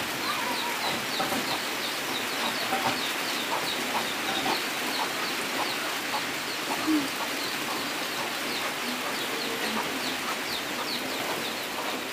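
Steady rain, with chickens clucking now and then and small birds chirping repeatedly.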